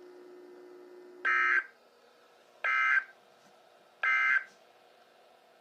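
Three short bursts of Emergency Alert System digital data over NOAA Weather Radio, about a second and a half apart: the end-of-message code that closes the weekly test broadcast. A steady low hum stops at the first burst.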